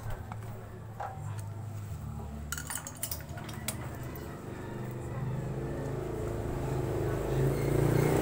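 Metal hand tools lightly clinking against a Kawasaki Barako's cylinder head while its valve clearances are being adjusted. There are a few clinks about a second in and a cluster of them around three seconds in, over a low steady hum that grows louder near the end.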